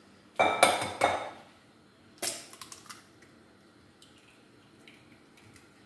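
A raw egg knocked against the rim of a ceramic mixing bowl to crack it: a couple of sharp knocks within the first second, another near the middle, then faint crackles as the shell is pulled apart.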